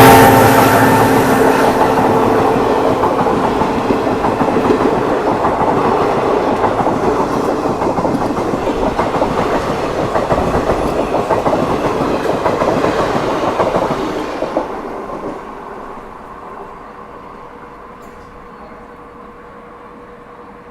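The tail of the EMD WDP4D diesel locomotive's horn dies away in the first second or two. Then the train's passenger coaches run past, a steady rumble with wheels clattering over the rail joints. The sound drops off sharply about fifteen seconds in as the end of the train passes, leaving a faint rumble.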